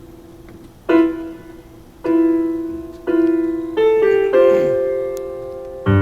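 Stage keyboard played with a piano sound: single notes struck about once a second, each left to ring and fade, then a quick run of a few notes into a held chord that slowly dies away.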